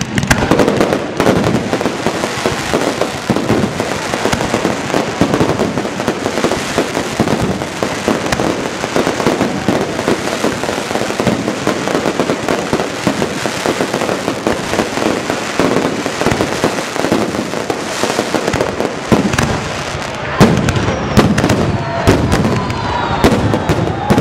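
A fireworks display going off in a dense, continuous barrage of bangs and crackling, with one louder bang about twenty seconds in.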